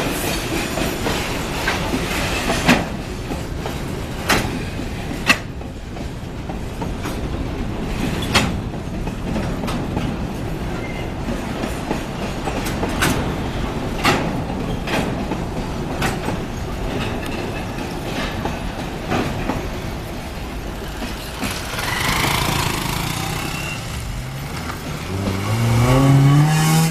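Loaded iron-ore freight wagons rolling past, their wheels clacking and knocking over the rail joints with a dozen or so sharp, separate knocks. Near the end a car engine revs up, rising in pitch and getting louder.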